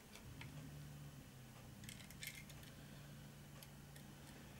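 Faint clicks and scrapes of a small screwdriver turning a screw into a plastic model part, with a cluster of clicks about two seconds in. A faint steady low hum runs underneath.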